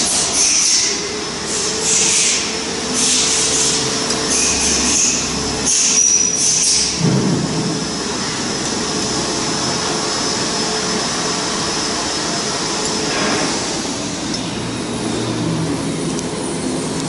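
Steady machinery hum in a CNC workshop. Through the first seven seconds it is broken by irregular metallic clinks and scrapes as the tailstock and a wooden cylinder are set up on the router's rotary axis; after that the hum carries on alone.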